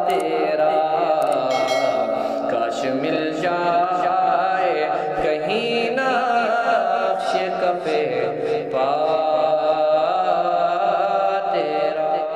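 Men's voices chanting an Urdu naat without instruments: a steady droning hum held under a lead voice whose pitch wavers and glides.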